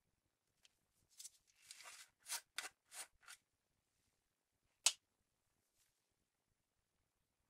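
Plastic screw-top lid of a slime jar being twisted off: a run of short scraping, clicking strokes over about two seconds, then a single sharp click about five seconds in.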